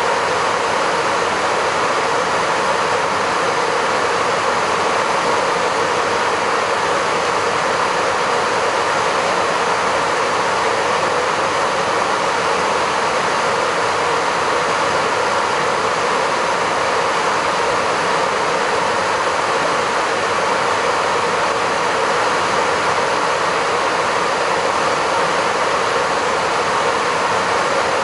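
Steady rushing hiss on an Airbus A330 flight deck at cruise: the noise of air streaming past the cockpit windscreen and nose at high speed, even and unchanging.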